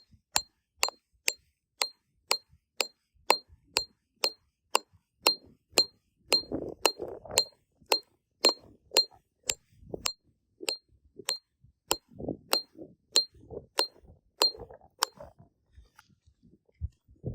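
Hammer driving a steel tent stake into the ground, about two sharp ringing strikes a second; the strikes stop shortly before the end. Softer rustling and handling noise comes between some blows.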